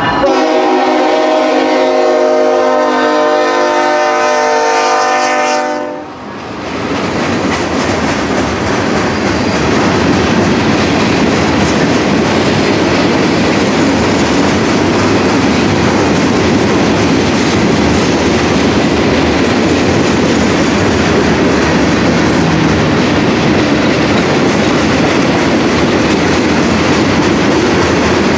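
Diesel freight locomotive's horn sounding one long chord for a grade crossing, cutting off about six seconds in. Then the freight train's cars roll past in a steady, loud rumble of wheels on rail.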